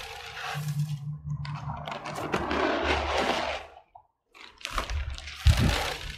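Dry hen-manure pellets pouring from a plastic scoop onto a heap of potting soil, a rattling, hissing patter. It comes in two pours with a short break of silence between them.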